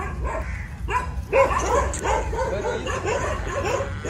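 Leashed dogs whining and yipping in short, high cries, several a second, eager to get to each other and play.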